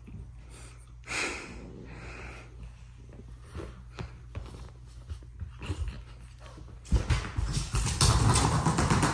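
A Rottweiler puppy play-wrestling with a long-haired cat on a fabric sofa: soft scuffling and scattered light knocks, with a louder short sound about a second in. From about seven seconds in there is a loud burst of scrambling and rustling as the two leap down and run off across the floor.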